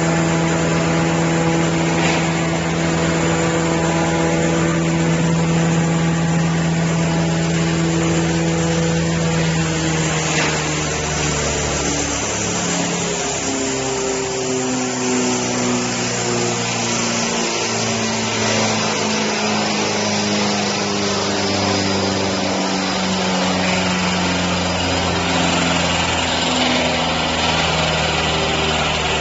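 Hammer mill cardboard grinder running with a steady mechanical hum; about eleven seconds in its pitch drops and wavers, then settles at a lower, changing pitch.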